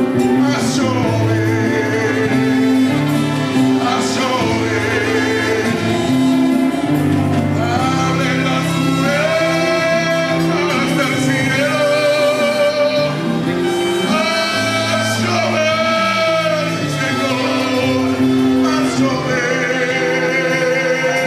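Live Spanish-language gospel worship song: a male lead singer holding long, wavering notes over a band's steady bass and chords, with a choir singing along.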